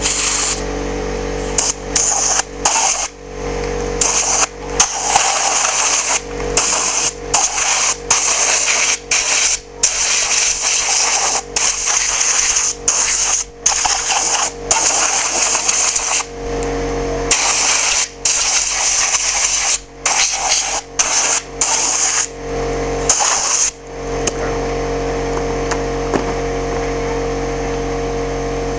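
Air compressor running steadily, with many short bursts of compressed air hissing from a blow gun, each starting and stopping sharply; the bursts stop a few seconds before the end, leaving the compressor alone.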